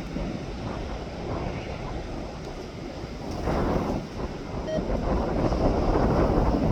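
Wind buffeting the microphone in gusts, a rumbling rush that grows louder about five seconds in.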